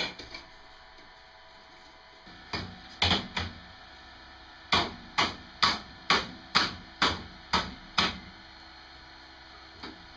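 Hammering: a few uneven knocks, then eight sharp blows at a steady pace of about two a second.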